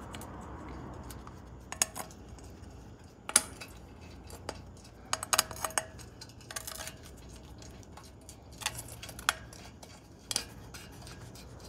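Steel bolts clinking against the Ford 8.8 axle's differential cover as they are threaded back into it by hand. The light metallic clinks come scattered and irregular, and a few ring briefly.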